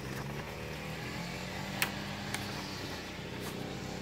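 Paper pages of a stapled instruction booklet being handled and turned, with two short crisp paper sounds a little before and after the two-second mark, over a steady low background hum.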